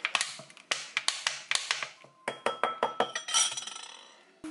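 Metal spoon clinking and scraping against a ceramic bowl while a sauce is measured and stirred: a quick run of sharp clinks, then a few taps that ring briefly about two seconds in, and a short scrape near the end.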